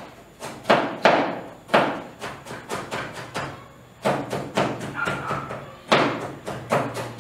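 Kitchen knife chopping a carrot, striking the board underneath: a run of sharp, uneven knocks, several a second, with a brief pause about halfway through.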